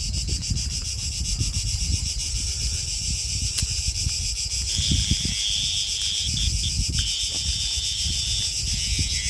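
Cicadas singing, a shrill steady buzz with a fast even pulse. About five seconds in, a second, lower buzz joins, breaks off briefly twice and stops shortly before the end, while wind rumbles on the microphone throughout.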